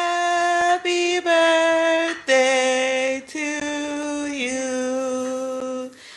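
Singing: a voice holding a handful of long, steady notes with short breaks between them, the pitch stepping down partway through.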